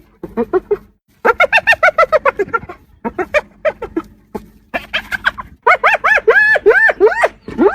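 Spotted hyena 'laughing' (giggling): fast runs of short, high-pitched notes, each one rising and falling in pitch, in several bursts with brief breaks between them.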